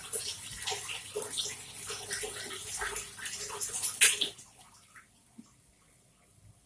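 Water splashing and sloshing in a cooking pot, with small irregular clicks, as leunca leaves are put in to boil. It ends about four seconds in with a sharper knock, after which it is almost silent.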